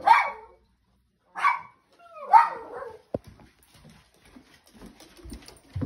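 A dog barks three times in the first two and a half seconds, the last bark falling in pitch. About 3 s in there is a sharp knock, then faint footsteps in shoes on a wooden floor.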